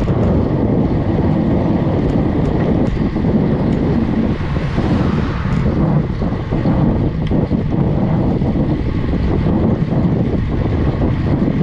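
Wind buffeting the microphone of a GoPro HERO 8 on a road bike climbing a paved hill: a steady, loud rumble with faint ticks here and there.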